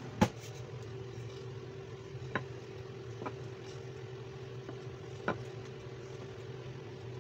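A steady low hum with a fainter higher tone runs throughout. Over it come a few light, sharp knocks as slices of bread are handled and rolled flat with a rolling pin on the countertop; the loudest knock is right at the start.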